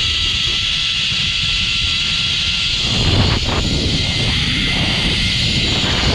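Zipline trolley running fast along a steel cable, a steady whirring with a thin whine, under heavy wind rushing over the microphone. The wind surges louder about three seconds in.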